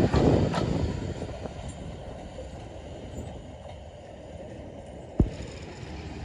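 A train passing on the line, loud at first and fading away over the first second or two to a steady low noise. A single sharp knock about five seconds in.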